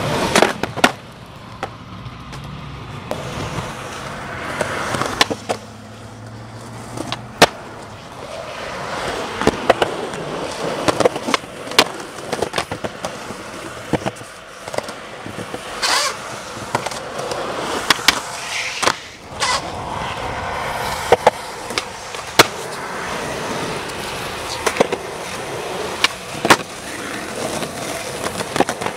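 Skateboards rolling on concrete and asphalt, a steady rolling rumble broken by many sharp clacks of the boards as tails pop, boards land and trucks strike.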